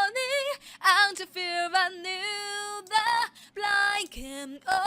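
A woman singing an English pop melody, a solo vocal track with no accompaniment, in held notes with short breaks between phrases. It is played back through Audition's built-in compressor while the threshold is being adjusted.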